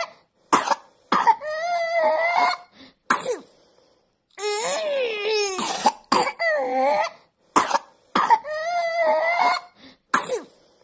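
A nine-month-old baby's severe cough: repeated fits of short, sharp coughs, each followed by a long, high, wavering cry-like sound, about four times.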